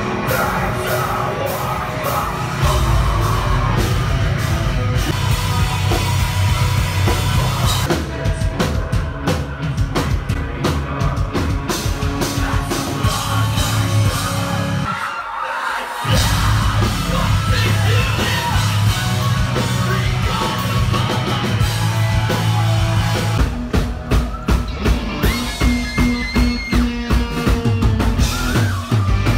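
Loud rock music with a pounding drum kit, electric guitars and yelled vocals. The bass drops out for about a second just past the middle.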